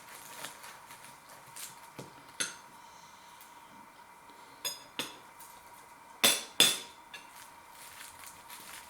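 A knife and plate clinking and knocking as a puff-pastry pasty is cut in half: scattered sharp clicks, a few with a short ring, and the two loudest knocks in quick succession about six seconds in.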